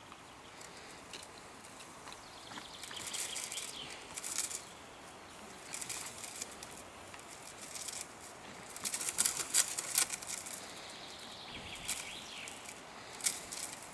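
Irregular rustling and scuffling bursts as a pit bull hangs from a springpole and jerks and bounces on the rope, its paws scraping dry forest litter. The bursts come in uneven clusters and are loudest a little past the middle.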